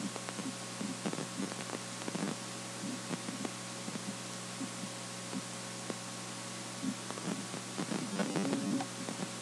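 Steady electrical hum with hiss from a recording setup, with scattered faint clicks and a few soft low sounds, the most of them near the end.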